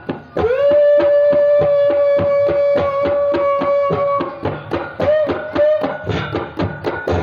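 Tabla played in a steady, fast stroke pattern of about four strokes a second, imitating a train chugging along. Over it a long whistle-like tone is held for about four seconds, like a train's whistle, followed by two short swoops of pitch.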